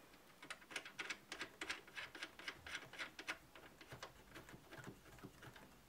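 Faint, irregular small clicks and scrapes, several a second, as fingers turn the thumb nuts of a Corsair H100i pump block down finger-tight onto its Intel mounting bracket.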